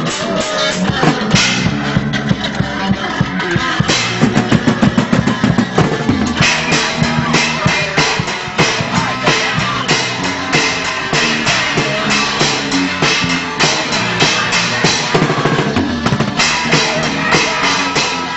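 Live hardcore punk band playing loud: drum kit with many quick hits, bass drum and electric guitar. It is heard through an old camcorder's microphone, so the sound is harsh and noisy.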